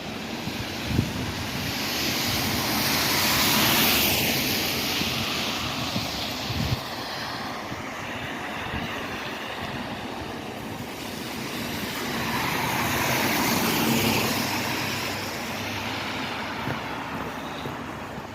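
Road traffic going by: two vehicles pass, the noise swelling to a peak about four seconds in and again about fourteen seconds in, then fading. There are a couple of short knocks early on.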